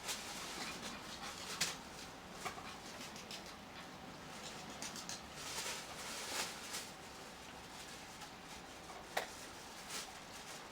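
Steady rain hissing, with a few sharp, irregular taps of drops striking close by.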